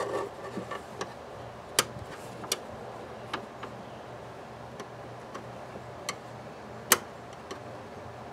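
Metal pick clicking and scraping against sheet-metal bodywork as it probes a body drain hole: a few scattered sharp clicks, the loudest about two and seven seconds in.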